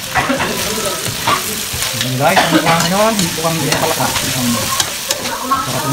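Frog adobo sizzling in oil in an aluminium wok while a spatula stirs it, scraping and clicking against the metal. The liquid has cooked down so only oil is left, and the meat and peppers are frying in it.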